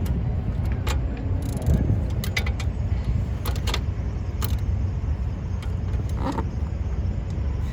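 Irregular metallic clinks and knocks from tools and suspension parts being handled during the work, over a steady low rumble.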